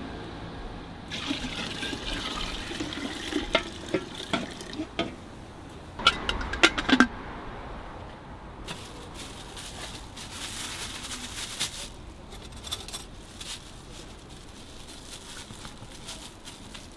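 Noodle broth being poured and splashing between a metal bowl and a large pot, with a quick run of sharp metal clinks partway through.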